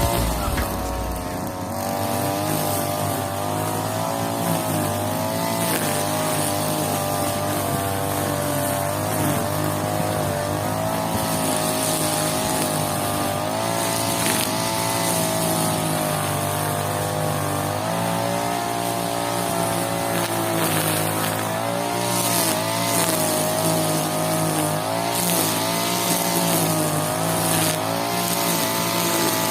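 Brush cutter with nylon trimmer line running at full speed while cutting grass, its steady pitch wavering slightly with the load.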